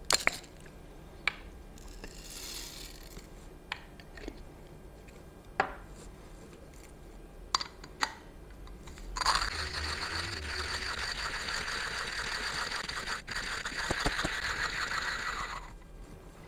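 A few sharp clicks and taps as the hand grinder is loaded and handled, then about six seconds of steady grinding from a 1Zpresso J-Max manual coffee grinder being cranked: its burrs crushing coffee beans at an espresso setting. The grinding stops shortly before the end.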